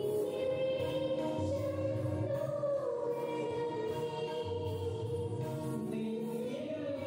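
Choir singing a slow hymn, the voices holding long notes.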